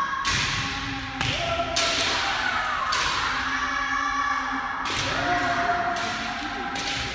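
Kendo sparring: several sharp smacks and thuds of bamboo shinai striking armour and bare feet stamping on the floor, over long held kiai shouts, one of which falls in pitch about halfway through.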